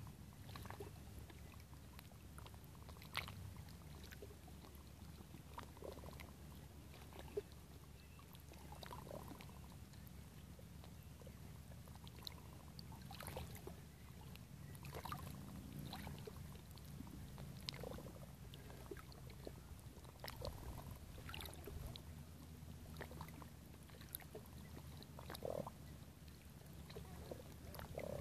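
Faint small ripples lapping against shoreline rock on glassy-calm sea water, a scatter of soft irregular plops and ticks over a low steady rumble of breeze on the microphone.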